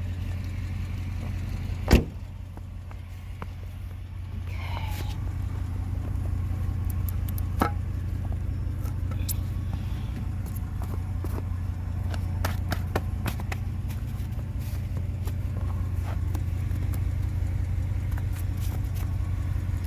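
Pickup truck engine idling steadily, with a single sharp knock about two seconds in and scattered light clicks and knocks afterward.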